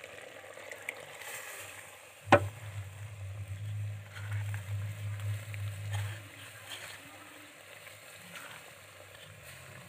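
Thick ground masala paste poured and scraped from a clay bowl into a clay pot of half-cooked chicken frying in oil, with a faint sizzle. A sharp knock comes a little over two seconds in, followed by a low rumble for about four seconds.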